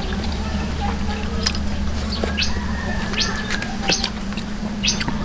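Close-up eating sounds: wet chewing and lip-smacking as people eat eel stew and rice with their hands, in short irregular smacks over a steady low hum.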